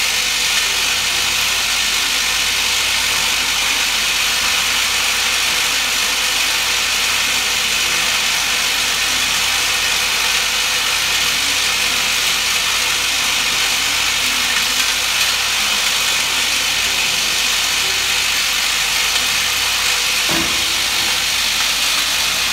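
Vibratory bowl feeder for hex bolts running: a steady low hum under a constant hiss of the bolts vibrating in the stainless steel bowl. A short knock about 20 seconds in.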